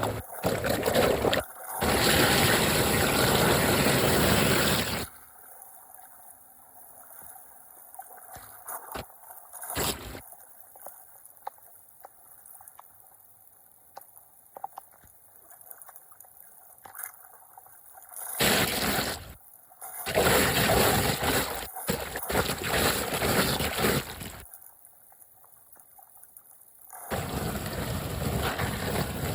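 Floodwater gurgling and pouring into a cleared street drain, draining in a whirlpool. Loud rushing stretches start and stop abruptly, with quieter trickling between them.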